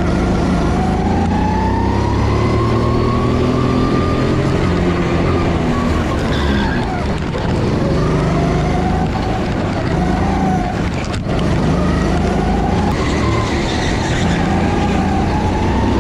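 Car engine accelerating hard through the gears, its pitch rising steadily and then dropping at each upshift, several times over.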